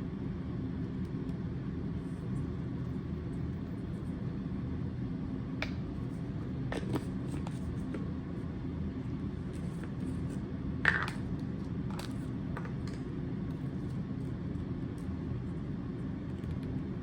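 A few light clicks and taps of spice jars and a measuring spoon being handled, the loudest about eleven seconds in, over a steady low hum of kitchen background noise.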